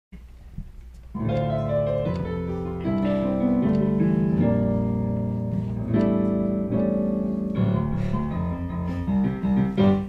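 Piano playing the introduction to a musical-theatre song: held chords that change every second or so, coming in about a second in after faint room sound.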